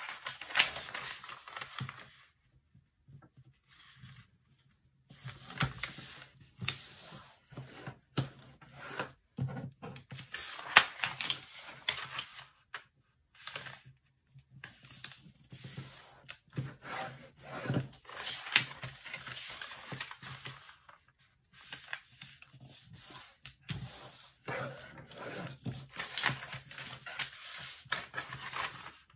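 A large sheet of origami paper being handled and folded: rustling and crinkling, with a bone folder rubbing along the creases. The sounds come in irregular bursts with brief pauses.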